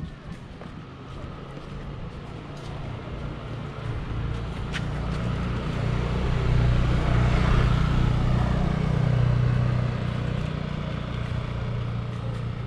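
A motor vehicle's engine passing with a low hum, growing louder over the first several seconds, loudest about seven to nine seconds in, then easing off.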